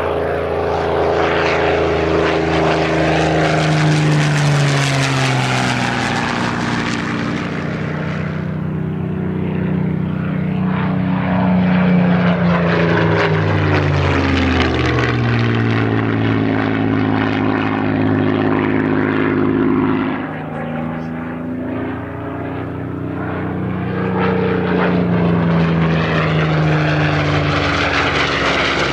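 Supermarine Spitfire Mk XVI's Packard Merlin V12 engine and propeller in flight, making several passes; each time the engine note slides down in pitch as the aircraft goes by.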